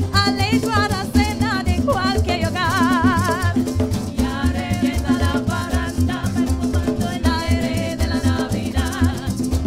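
Live parang band playing: singing with a wide vibrato over strummed acoustic guitar and cuatro, shaken maracas and a steady, repeating bass line.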